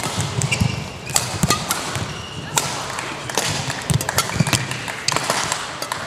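Badminton rally: sharp cracks of rackets striking the shuttlecock every second or so, with shoes squeaking on the court and thudding footsteps.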